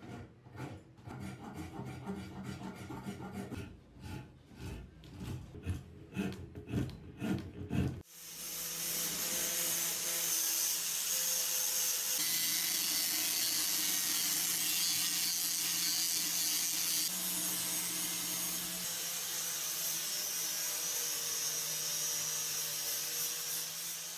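A hand rasp filing a wooden hatchet handle, in repeated quick strokes for about eight seconds. Then a power sander with a round sanding pad takes over and runs steadily against the wood, a continuous hiss over a steady motor hum.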